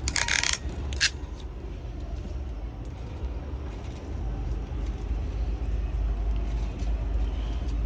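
Hand crimping tool closing on an RJ45 plug on a network cable: a short rasping crunch, then a sharp snap about a second in. A steady low rumble runs underneath.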